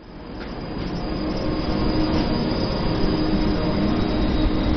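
A heavy vehicle rumbling as it approaches, growing steadily louder over the first two seconds and then holding, with a faint steady hum running through it.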